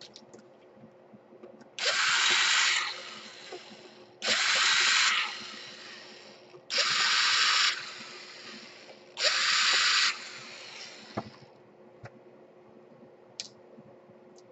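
Cordless electric drill/driver backing out the laptop screen's long mounting screws, in four short runs of about a second each, a couple of seconds apart.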